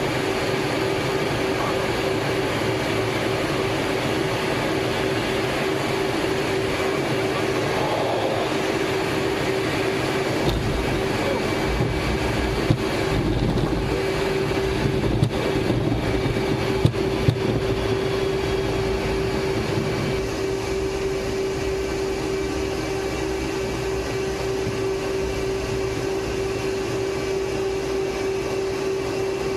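Inside the cockpit of an F/A-18 Hornet: steady jet engine and cockpit air noise with a constant hum. About ten seconds in, a deeper rumble and a few sharp knocks join as the jet lands and rolls out along the runway, then the rumble eases.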